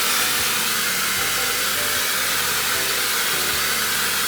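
Handheld hair dryer blowing steadily as it dries the crown of the head, with an even airy hiss.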